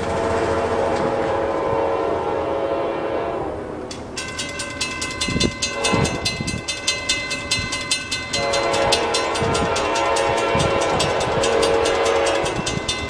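CSX intermodal freight train passing at speed over newly re-tied track: the locomotive horn sounds two long blasts, and about five seconds in the heavy thuds of the wheels over the rails begin. A rapid high metallic ringing starts about four seconds in and runs on under the horn and wheels.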